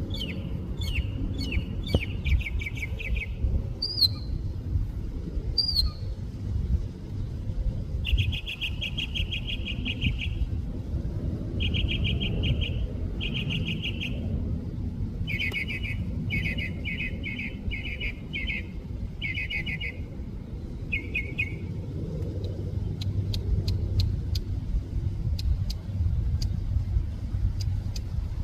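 Northern mockingbird singing: bouts of rapid, trilled phrases, each repeated several times before switching to the next, over a steady low rumble.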